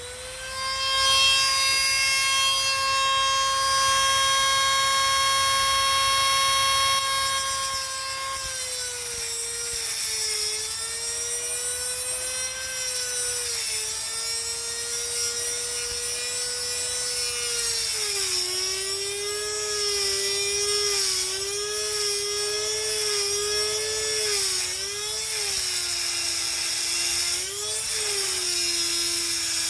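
Small high-speed electric power tool whining, steady for the first several seconds and then repeatedly dipping and recovering in pitch as it meets load.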